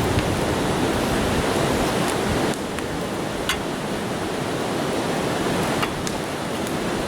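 Steady rush of river water tumbling over falls and rapids, with a few sharp pops on top.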